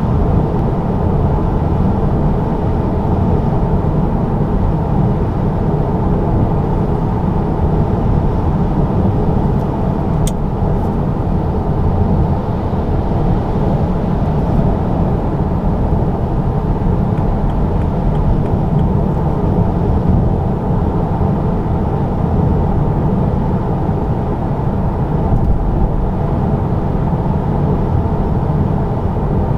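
Steady in-cabin drone of a BMW 330d cruising at motorway speed: its three-litre straight-six diesel and tyre and road noise, a constant low rumble that holds even throughout.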